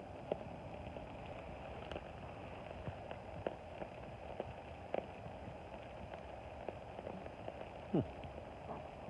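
Rain falling steadily, with close drops landing as irregular ticks over a soft hiss, and one louder drop-like knock near the end.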